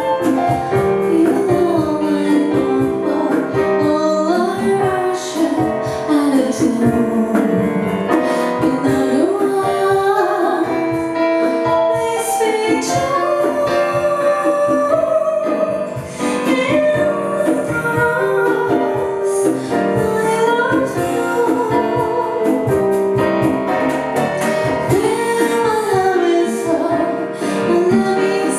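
Bossa nova played live: a woman singing over piano, with light percussion keeping a steady beat.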